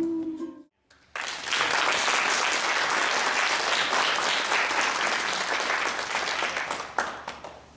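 Audience applauding: dense clapping that starts about a second in and fades out near the end.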